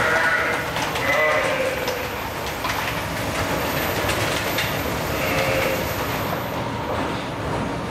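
Sheep bleating three times over a steady mechanical noise from a TKS automatic feeding robot running on its overhead rail.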